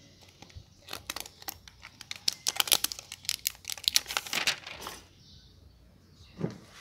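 Thin plastic protective film crackling and crinkling as it is peeled off a new smartphone's screen, for about four seconds, then a single soft knock near the end.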